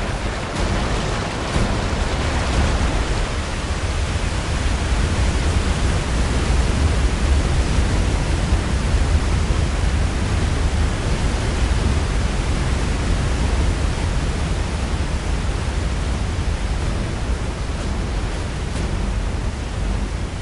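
Water rushing over a large waterfall: a steady, dense noise with a deep low rumble underneath.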